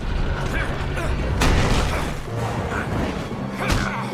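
Animated-film action sound effects: a low explosion-and-fire rumble with two sharp impacts, one about a second and a half in and one near the end, over a film score.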